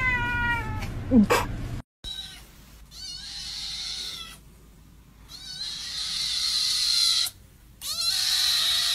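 Black kitten meowing over and over. First comes a drawn-out meow that falls in pitch, then, after a brief break, a string of short, high meows.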